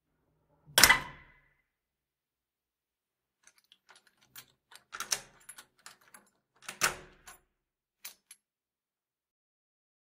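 A door and its interlocking lock: a loud latch knock about a second in with a brief ring, then a run of small rattling clicks from the lock mechanism, a second heavy thunk near seven seconds, and two light clicks after it.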